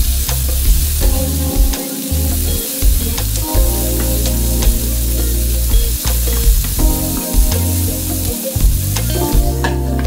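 Bell pepper strips and onion sizzling in a hot oiled frying pan while being stirred with a wooden spatula, with many short taps and scrapes of the spatula against the pan. Near the end a glass lid is set on the pan and the sizzle becomes muffled.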